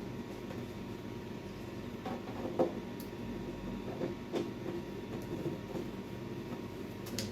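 A few light clicks and knocks of a hand tool working the bolts of a snowblower's plastic belt cover, the loudest a sharp knock between two and three seconds in, over a steady low hum.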